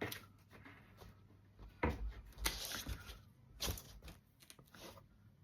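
Handling of the tablet's box and packed accessories: several sharp knocks and clatters, the loudest about two seconds in, with light rustling between them.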